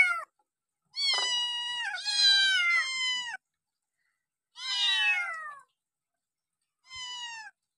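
A cat meowing in a string of separate high-pitched calls, each falling in pitch at its end, with short silences between them; the last meow is short and quieter.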